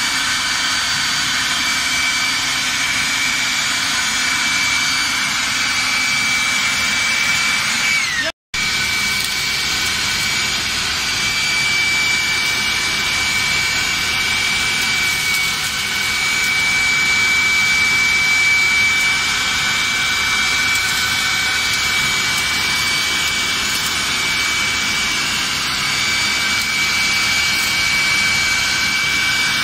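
Makita UB1102Z 600 W corded electric blower running at speed: a steady high whine over a rush of air. About eight seconds in, the whine sags slightly and the sound drops out for a split second, then resumes and runs on steadily.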